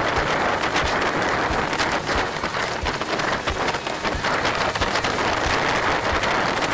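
Wind and water rushing along a Sunfish sailboat's hull under sail, with a steady patter of small splashes.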